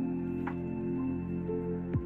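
Background music: soft ambient instrumental with sustained tones and a note struck about every second.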